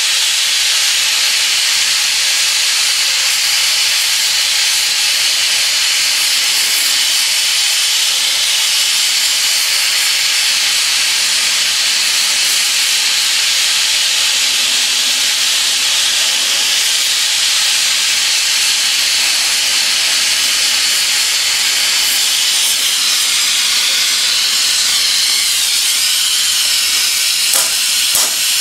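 Gas torch flame hissing steadily while it heats a flat metal bar, with a few light clicks near the end.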